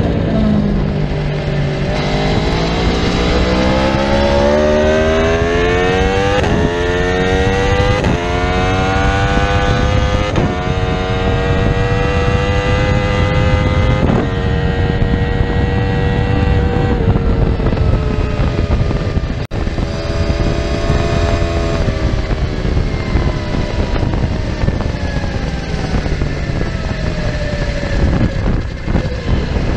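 Aprilia RSV4's V4 engine at full throttle on track: the pitch dips briefly, then climbs through four quick upshifts, each a sharp step down followed by a rising howl. In the second half the pitch falls away as the bike slows, with a brief dropout about two-thirds of the way in. Steady wind rush runs under the engine.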